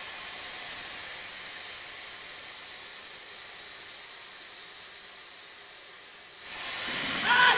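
Steam locomotive hissing steam from around its cylinders: a steady high hiss that slowly fades, then bursts out loud again about six and a half seconds in.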